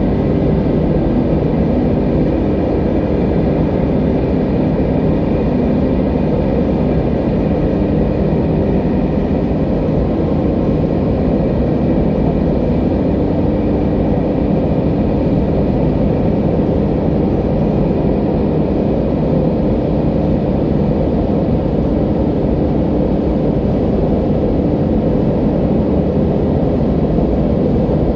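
Ambient music drone: a steady low rumbling wash with faint sustained tones held above it, unchanging throughout.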